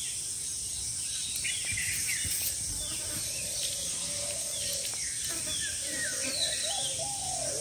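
Birds chirping with short sliding calls over a steady, high-pitched insect drone. Lower, repeated sliding bird calls join in over the last couple of seconds.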